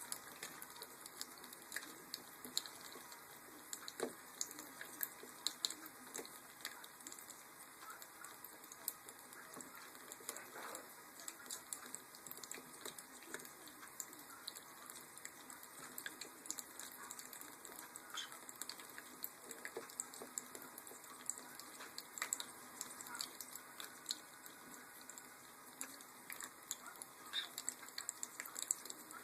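Green-cheeked conure bathing, splashing in a little water with many small, irregular splashes and drips.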